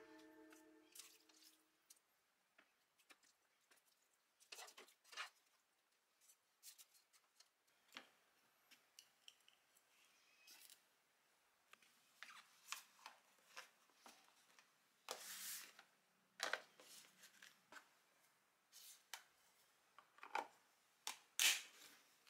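Faint clicks, taps and scrapes of chopsticks and plastic lunch containers as food is packed and lids are fitted, with a longer rustle about 15 seconds in and a sharper click near the end.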